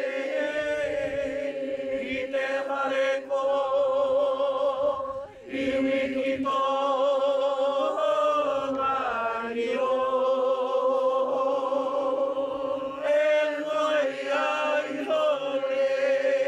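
Voices chanting together on a long, steady held note, with other voice lines moving above it.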